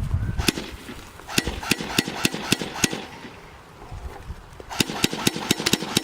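Airsoft guns firing at a can: sharp snapping shots, a handful spaced about a third of a second apart, a short pause, then a quicker steady string of about four shots a second near the end.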